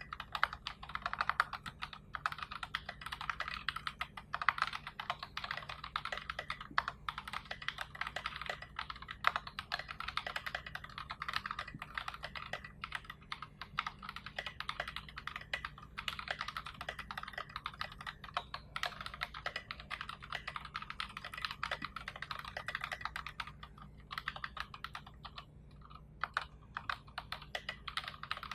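Continuous fast typing on a mechanical keyboard with NovelKeys Box Royal tactile switches, SA-profile keycaps and a 3mm acrylic plate in an acrylic case: a dense run of key clacks, with a short lull about 25 seconds in.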